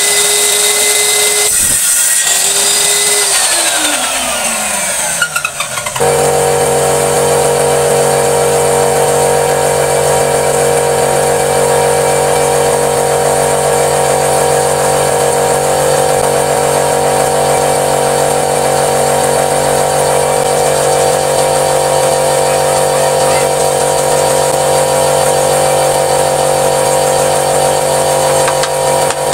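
A woodworking power tool's motor runs at a steady high whine, cuts out briefly, starts again and winds down with falling pitch. About six seconds in, a different machine starts abruptly and runs steadily with a lower hum.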